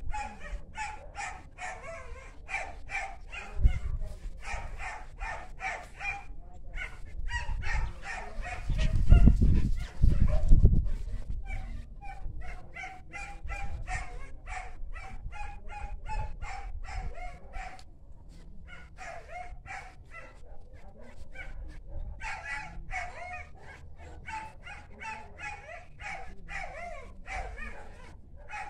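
A dog yapping in a fast, steady run of short high-pitched yips, about four a second, with brief pauses. Low rumbling thuds about a third of the way in are the loudest sound.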